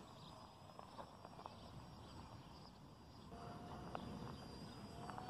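Faint whine of the RC foam plane's Racerstar 2508 brushless electric motor and propeller flying past. It comes in as a steady tone about three seconds in and rises slightly near the end, over a few faint clicks.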